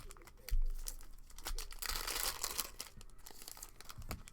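Foil trading-card pack wrappers crinkling and tearing as packs are opened, with a dull thump about half a second in.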